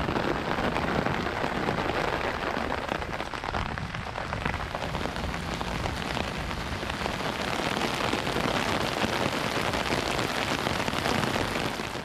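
Steady rain falling on wet pavement, a dense patter of drops.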